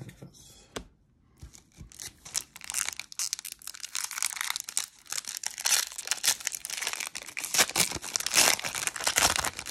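Foil wrapper of a 1993 Donruss baseball card pack being torn open and crinkled by hand. The crinkling starts about two seconds in and keeps going, loudest in the second half.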